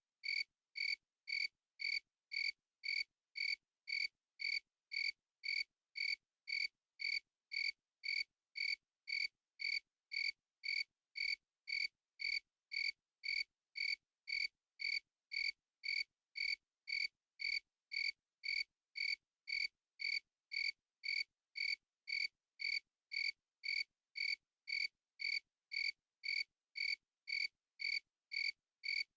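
A cricket chirping steadily: short, high, clear chirps repeating at an even pace of about one and a half a second, with silence between them.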